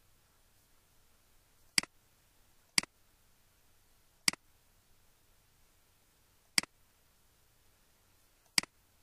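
Five sharp computer mouse button clicks at uneven intervals, about one to two seconds apart. Each is followed at once by a fainter tick.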